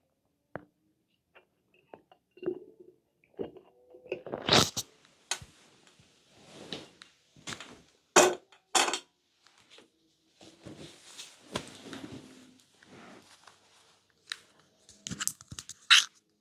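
Human stomach gurgling close to the microphone: irregular squelches, crackles and pops with brief low rumbling tones, and a few sharp, loud pops in the middle.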